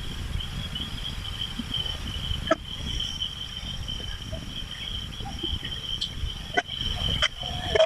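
Steady high-pitched insect trill over a low rumble, with a few sharp knocks: one about two and a half seconds in and three more near the end.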